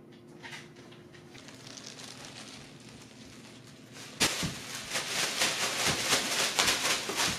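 Plastic wrap on toilet-paper multipacks crinkling and tearing as it is ripped open, starting about four seconds in, with a few soft thumps of rolls dropping onto carpet.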